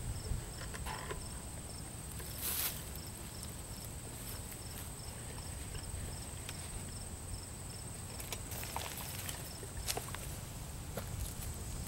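An insect chirping in a regular, evenly spaced high rhythm over faint outdoor background, with a few scuffing steps near the end.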